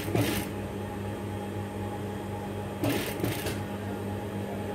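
Steady low hum of an industrial sewing machine's motor left running, with two short rustles of cotton fabric being folded and handled under the presser foot, one at the start and one about three seconds in.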